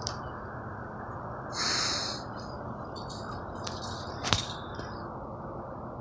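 Outdoor background: a steady low hiss, with a short high chirp about a second and a half in, a few faint high chirps later, and one sharp click about four seconds in. No chainsaw is running.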